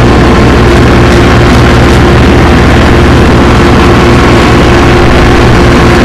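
Tractor engine running steadily under load while driving the mower, loud and close from the driver's seat.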